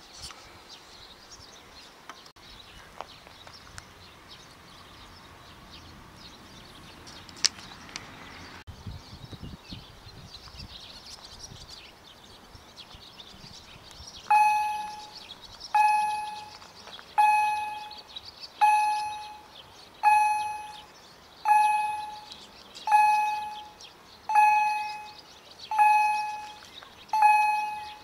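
Level crossing warning bell striking at a steady pace of about one ring every second and a half, each ring fading out, starting about halfway in. It signals that the crossing is active for an approaching train.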